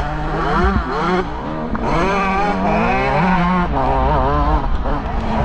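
125cc two-stroke motocross engine revving at race pace, its pitch repeatedly rising and falling with throttle and gear changes.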